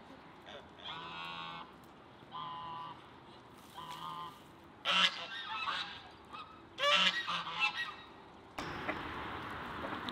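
Domestic geese honking: a few drawn-out calls, then two louder clusters of short honks about five and seven seconds in. From about eight and a half seconds a steady rushing noise sets in.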